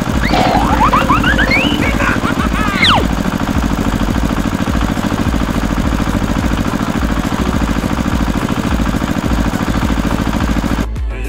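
Tractor engine chugging steadily with an even low beat, with a few rising whistle-like glides over the first three seconds. It cuts off just before the end.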